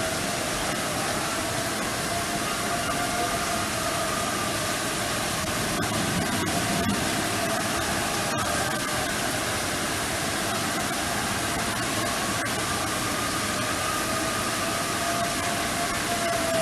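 Outdoor tornado warning siren, a faint steady wail that slowly swells and fades. It nearly drops away in the middle and comes back near the end, over a steady hiss of noise.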